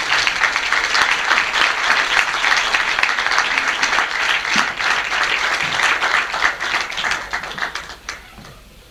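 Audience applauding at the end of a speech, a dense patter of many hands clapping that fades out about eight seconds in.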